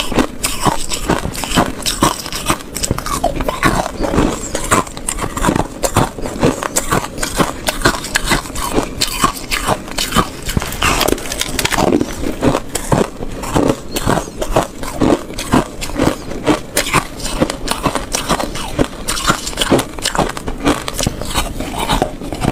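Close-miked biting and chewing of shaved ice, a dense run of crunches several times a second without a break.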